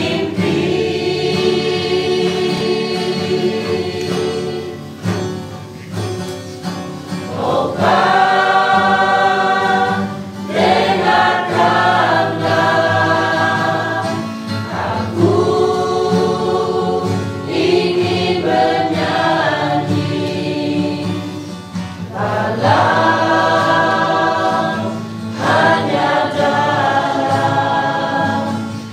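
A mixed group of men, women and children singing a slow song together from sheets, in long held notes phrased a few seconds at a time.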